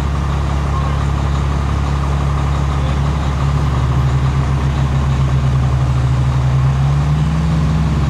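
Diesel motorhome running at idle: a steady low engine hum with a slight shift in pitch about seven seconds in.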